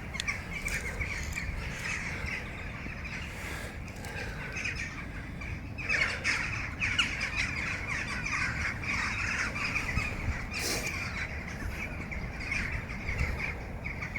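A chorus of birds calling continuously in woodland, many overlapping calls with no pause, over a low, steady rumble.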